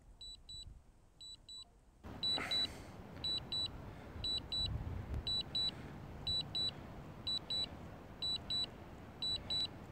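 Drone remote controller beeping in short high double beeps about once a second, its alert while the drone flies itself back on Return-to-Home. A low steady rushing noise comes in about two seconds in.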